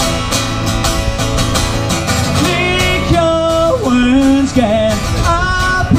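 Live music: an acoustic guitar being strummed, with a melody of long held notes coming in about two and a half seconds in.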